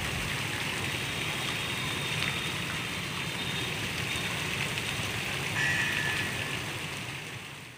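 Fountain jets spraying and splashing back into the water of the basin, a steady rain-like hiss from the four-tier central nozzle and the ring of umbrella nozzles. It fades out just before the end.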